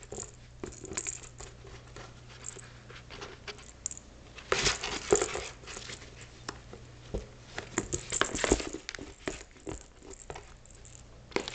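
Sheltie puppy shifting about in a cardboard box: scattered scrapes, rustles and clicks against the cardboard, with louder bursts of rustling about five seconds in and again about eight seconds in.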